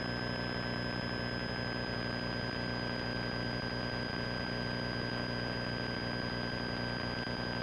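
Light aircraft's piston engine and propeller droning steadily in flight, with a thin steady high whine over it.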